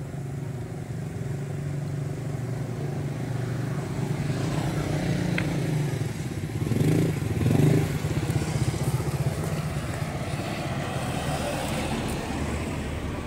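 Motorcycle engine running steadily, swelling louder for a moment around the middle.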